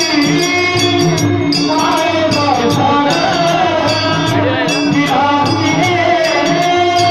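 Devotional song: a sung melody over a steady drum beat, with small metal cymbals or jingles striking in rhythm.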